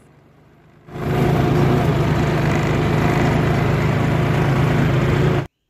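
John Deere 5050D tractor's three-cylinder diesel engine running steadily under load while pulling a plough. It comes in about a second in and cuts off abruptly near the end.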